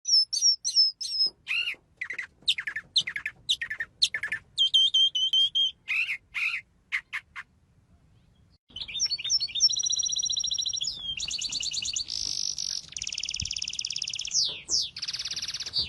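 Songbird singing: a string of separate high chirps and whistled notes, a pause of about a second, then a fuller song of fast trills and buzzy rolls with a few sweeping notes.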